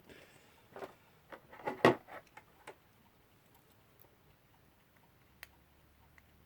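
Small brass clock-movement parts being handled on a bench: irregular light clicks and scrapes, bunched in the first three seconds and loudest just before two seconds in, then one more click about five and a half seconds in.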